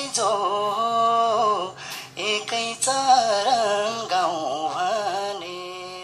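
A solo voice singing long, wavering notes in a folk-style song, fading down near the end.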